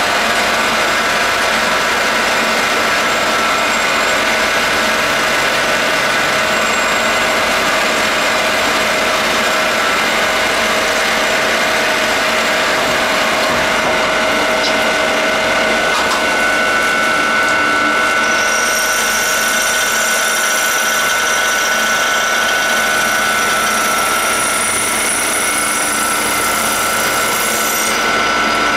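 CNC automatic lathe running as it machines screws, a loud, steady mechanical noise with several held tones. From about two-thirds of the way through, high whining tones join in, stopping just before the end.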